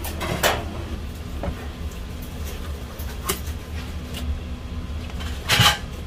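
Knife and fish being handled on a plastic cutting board: a few sharp knocks and scrapes, the loudest near the end, over a steady low hum.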